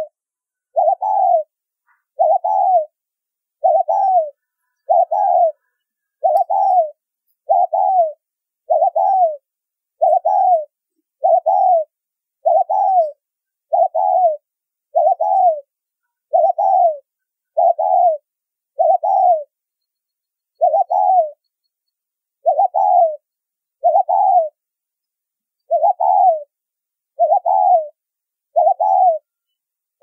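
Spotted dove giving short, clear coos, about one a second, each dipping slightly in pitch, with a couple of slightly longer pauses near the end. This is the quick, repeated 'gáy thúc' calling, in the whistle-like tone its keepers call 'tông âm còi'.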